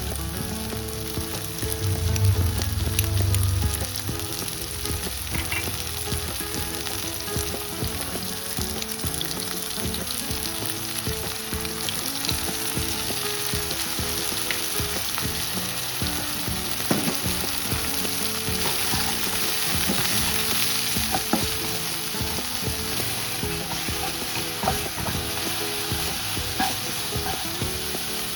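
Wide rice noodles, pork and kale stir-frying in a hot pan for pad see ew: a steady sizzle with a spatula scraping and clicking through it. There is a louder low rumble for a couple of seconds near the start.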